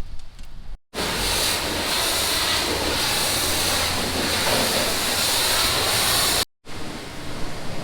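A power tool cutting stock for ladder steps, running steadily and loud for about five and a half seconds, starting and stopping abruptly.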